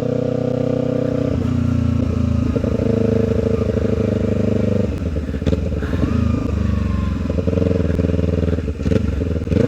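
Kawasaki Ninja 300's parallel-twin engine running straight-piped with the muffler removed, very loud. The engine note changes pitch several times, dropping about five seconds in.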